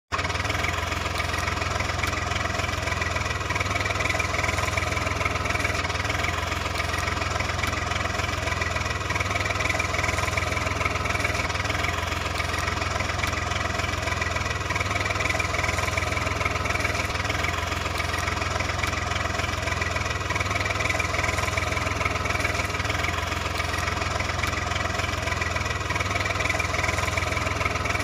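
Tractor engine running steadily at idle, an even low rumble that does not change.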